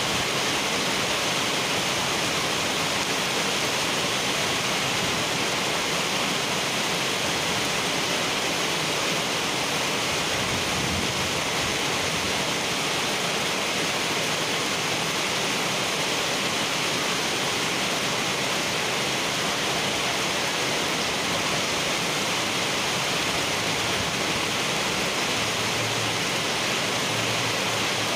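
Heavy rain pouring onto wet asphalt: a steady, dense hiss of drops splashing on the flooded road surface.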